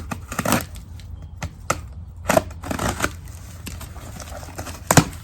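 A cardboard shipping box being handled: irregular rustling and scraping, with a sharp knock near the end.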